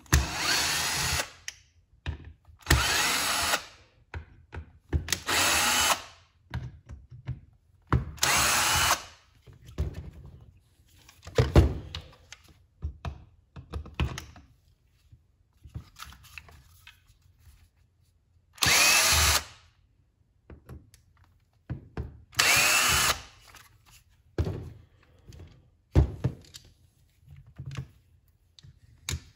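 A HART cordless power tool's motor run in short trigger pulls: about seven bursts of one to one and a half seconds, several spinning up in pitch, with small clicks and knocks of handling in between.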